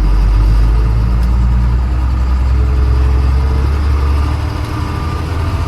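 Vehicle engine running steadily, a loud, low-pitched sound.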